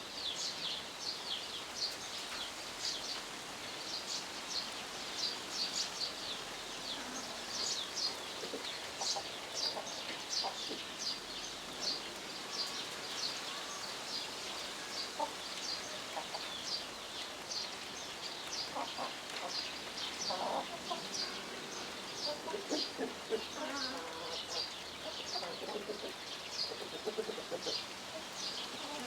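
Many small birds chirping continuously in quick, overlapping high chirps. Lower calls join in, mostly in the second half.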